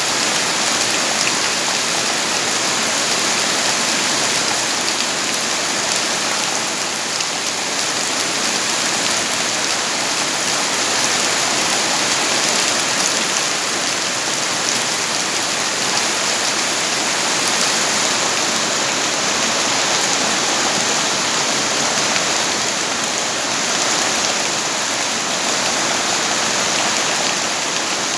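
Steady heavy rain falling and pattering on surfaces, a dense continuous hiss with many fine drop impacts.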